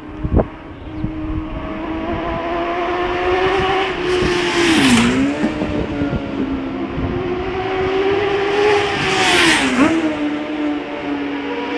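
Two racing motorcycles pass one after the other at high speed, about five seconds apart; each engine note grows louder as it comes up and drops sharply in pitch as it goes by.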